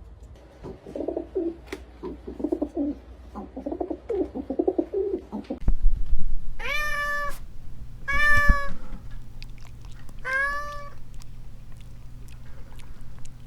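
A cat meowing three times, about two seconds apart, each meow drawn out for roughly half a second. Before the meows there are about five seconds of quick, soft animal chattering, over a low steady hum.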